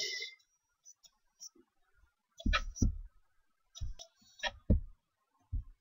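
Near silence, then about half a dozen short, scattered clicks and taps in the second half.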